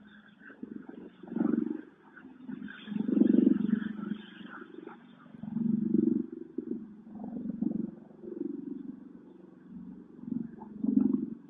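Bell Boeing V-22 Osprey tiltrotor in helicopter mode, its two proprotors heard from a distance as a low growl. The growl swells and fades several times.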